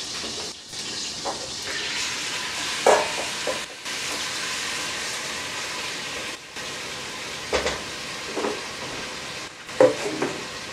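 Diced raw chicken sizzling steadily as it sears in hot chicken fat in a stainless steel pot. It is stirred with a silicone spatula, with a few brief louder sounds about 3 and 7.5 seconds in and near the end.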